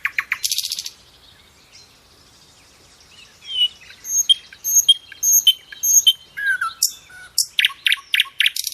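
Small pet birds chirping: a fast run of high chirps, a pause of about two seconds, then repeated short chirps about twice a second, and quick trills again near the end.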